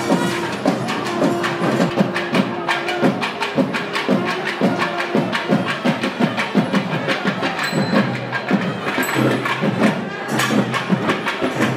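Fast procession drumming with sharp, rapid strokes, joined by a held pipe-like note that breaks off about halfway through.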